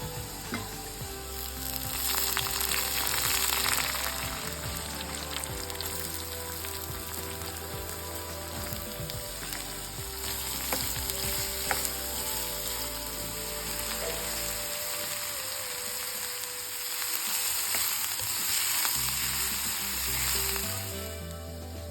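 Millet dosa batter sizzling on a hot griddle, a steady crackling hiss that swells louder about two seconds in and again near the end.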